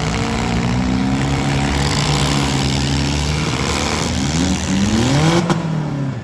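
Four-cylinder demolition derby car engines running hard, with several engines heard at once; the pitch rises sharply several times near the end as the engines are revved. A single sharp bang comes about five and a half seconds in.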